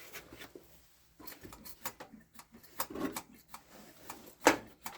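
Scattered light clicks and knocks of the carburetor throttle linkage being worked by hand to check the accelerator pump squirt, with one sharper knock about four and a half seconds in. The engine is not running.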